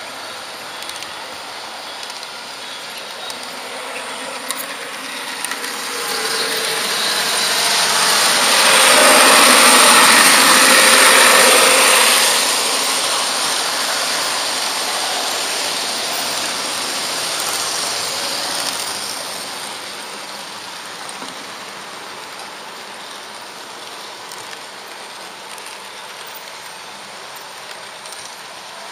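H0-scale model train running along the layout track, its wheels and drive gearing giving a steady mechanical rattle. Through the middle the rattle grows louder for several seconds and then settles back, as a model freight train carrying truck trailers runs past on the next track.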